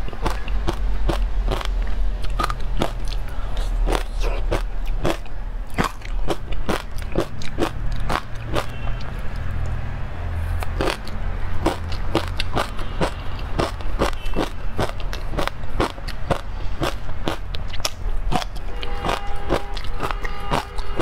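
Close-miked ASMR eating: many crisp crunches and bites as an ice cream bar coated in crunchy crumbs is bitten and chewed, over a steady low hum. A few short faint tones sound near the end.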